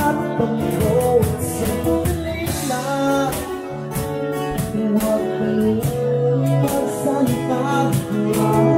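Live acoustic band playing: acoustic guitars strummed while a man sings into a microphone.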